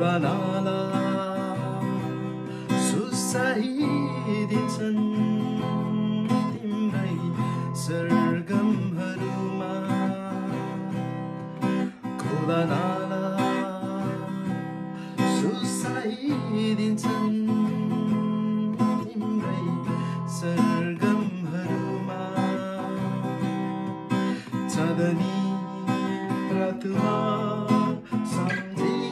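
Acoustic guitar strummed in steady chords while a man sings a melody over it.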